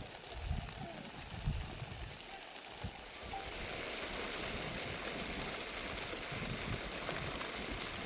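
Steady hiss of heavy rain, growing louder and even from about three seconds in. A few low rumbling thumps come in the first seconds.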